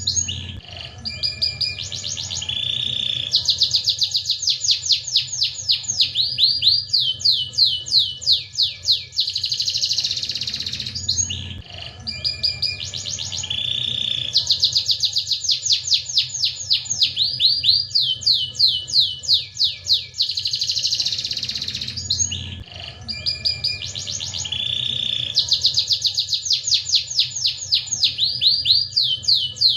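Domestic canary singing vigorously: long songs of fast trills and rapid rising sweeps, the same song recurring about every eleven seconds, over a faint steady hum.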